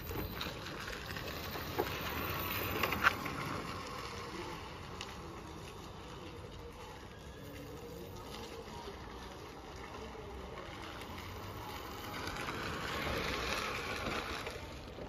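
TVS Scooty Pep converted to a petrol-electric hybrid, ridden on electric power: a low, even noise of tyres rolling over a dirt road, with no clear engine note. It grows louder as the scooter passes close, about two seconds in and again near the end, and fades in between.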